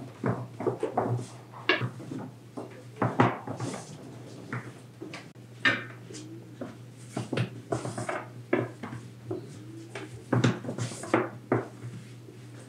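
Wooden rolling pin knocking and rolling on a board as a ball of paxlava dough is rolled out into a thin sheet: irregular knocks and taps, some louder than others, over a steady low hum.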